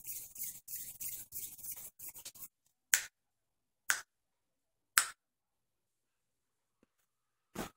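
A scratchy rustling for the first couple of seconds, then three sharp finger snaps about a second apart and one more near the end.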